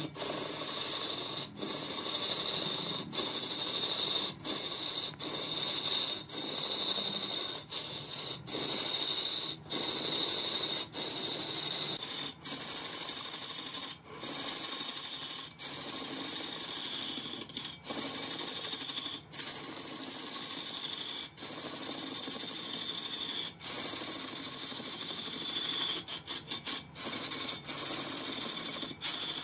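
Wood lathe turning, with a cutting tool scraping shavings off the spinning wood: a steady, high hiss. It breaks off abruptly for an instant every second or two, with several quick breaks near the end.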